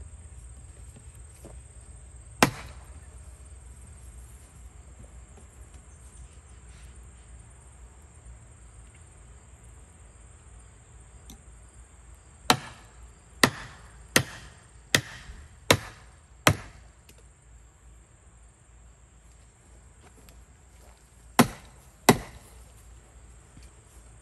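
Hammer blows on a wooden garden-fence frame: a single strike, then a run of six about a second apart, then two more near the end. Insects chirr steadily in the background.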